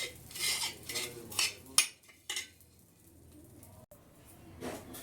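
Powdered borax being shaken through an iron sieve: rhythmic metallic scraping and rattling strokes, about three a second, then a couple of sharp knocks about two seconds in. After that it goes quiet, with faint handling again near the end.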